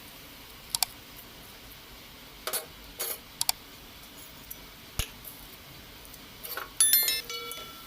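Cutlery against a metal plate: scattered light clicks and taps, then near the end a spoon strikes the plate with a loud, ringing clink.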